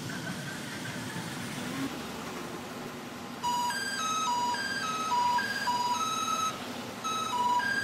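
A steady background hiss. About three and a half seconds in, a mobile phone ringtone starts: a simple electronic melody of short, clear notes that hop up and down.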